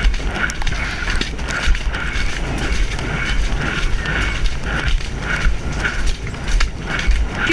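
Horse cantering, heard from the rider's helmet camera: a rhythmic rattle about twice a second in time with the strides, over a low rumble of wind and jolting on the microphone.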